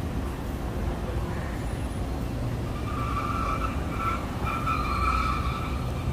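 Cars driving past at low speed: a steady low traffic rumble, with a high squeal from a car that starts about halfway through and lasts about three seconds, breaking off briefly once.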